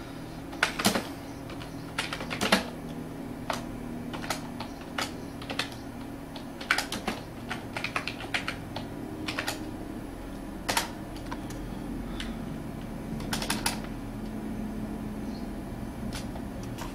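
Typing on a computer keyboard: keys clicking singly and in quick clusters, with pauses between, over a steady low hum.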